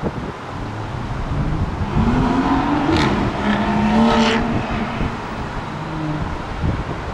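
A vehicle engine passing close by: its pitch rises for about a second, then holds steady before fading, with a brief hiss twice in the middle. Wind rumbles on the microphone throughout.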